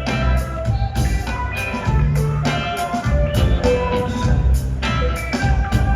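Live band playing an instrumental passage with drums and a low bass line under short melodic notes, no singing.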